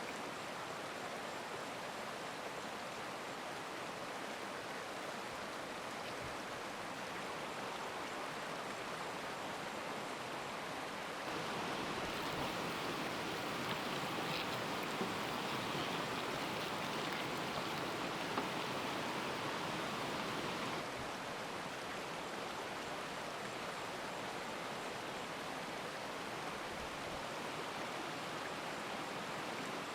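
Steady rush of a flowing stream, louder and brighter for about ten seconds in the middle.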